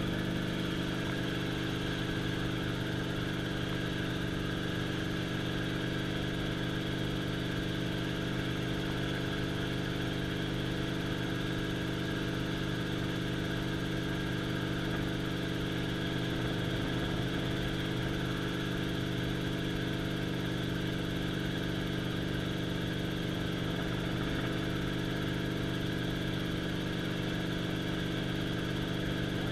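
Helicopter engine and rotor heard from inside the cockpit in level flight: a steady drone with several constant tones over a rushing noise.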